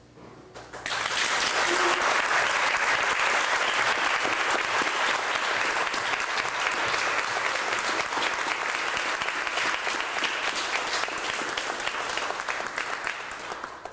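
Audience applause: many people clapping, starting about a second in and stopping abruptly near the end.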